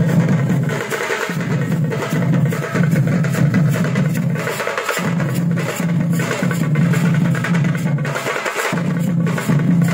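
Group of Tamil parai frame drums beaten with sticks in a fast, dense rhythm, accompanying kavadi dancing. The deep beat breaks off briefly three times: about a second in, around five seconds in, and shortly before the end.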